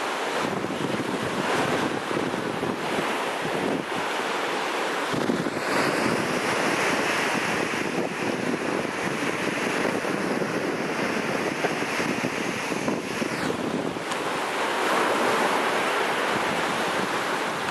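Surf washing on a beach, with wind buffeting the microphone; a steady rush of noise that grows brighter and fuller for several seconds in the middle.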